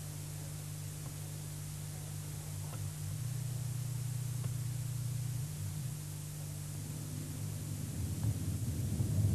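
Steady low hum under a constant hiss, with a rougher low rumble building up near the end.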